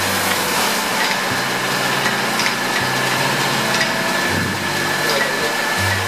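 Raw green coffee beans pouring from a sack into a large metal roasting pan: a steady rushing hiss of beans pattering onto metal and onto each other. Under it runs a low machine hum that shifts in pitch about every second and a half.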